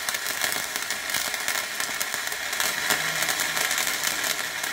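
Stick (MMA) welding arc burning steadily as the electrode is dragged along a plate to run a bead: a continuous crackling sizzle.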